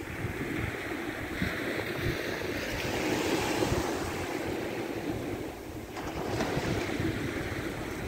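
Small sea waves washing up on a pebbly beach, the surf hiss swelling and fading as each wave runs in and draws back. Wind buffets the microphone as a low rumble underneath.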